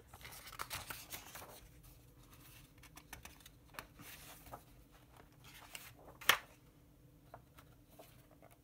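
Pages of a paper instruction manual being turned and handled, rustling softly with small flicks of paper. One short, sharp click about six seconds in stands out as the loudest sound.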